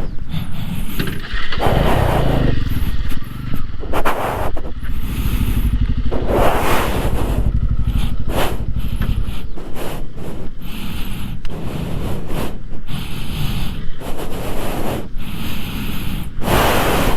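Motorcycle engine running while being ridden over a rough track, with wind buffeting the microphone in repeated rushing gusts.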